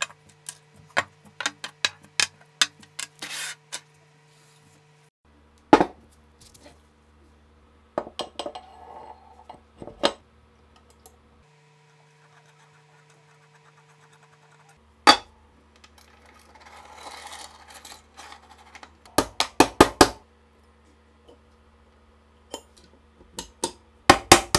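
Steel parts of a STEN Mk2 submachine gun being handled and fitted together on a wooden bench: sharp metallic clicks, clinks and taps in scattered clusters, with a short scraping stretch in the middle and quick runs of knocks about two-thirds of the way in and again near the end.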